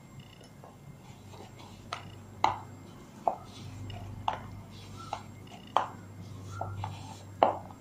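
Hands kneading a soft, wet dough in a plastic bowl: irregular sticky slaps and taps, about one a second, over a low steady hum.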